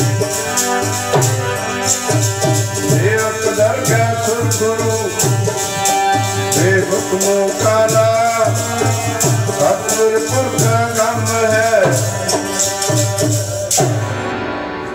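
Group singing of Punjabi Sikh devotional music, accompanied by a steady beat on a rope-tuned barrel drum (dholak), long-necked string instruments and jingling percussion. The music fades out and stops just before the end.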